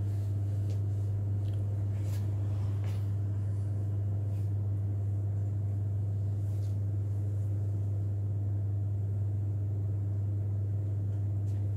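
A steady low hum with no change in pitch or level, with a few faint ticks scattered through it.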